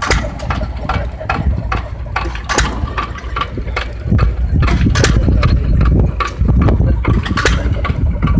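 Antique stationary gas engines running, with sharp regular beats about two to three times a second over a low rumble. The rumble grows louder about four seconds in.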